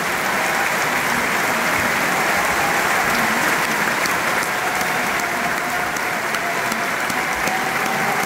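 Audience applauding steadily, a dense even ovation right after the final note of an operatic aria.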